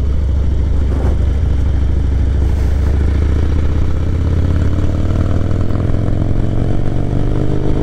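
Harley-Davidson V-twin engine heard from the rider's seat, running low and steady at first, then pulling away and accelerating, its pitch climbing steadily over the second half.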